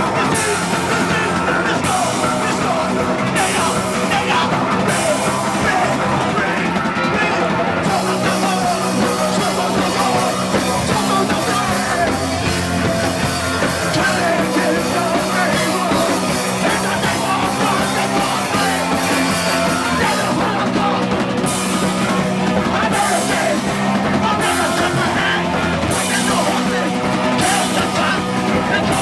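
A live rock band playing loudly, distorted guitars and bass over a drum kit with cymbals, with yelled or shouted vocals in places.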